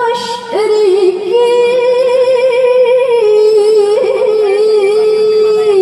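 A young girl chants Quran recitation in the melodic tilawah style, holding long ornamented notes with a wavering, melismatic pitch. There is a short break for breath about half a second in.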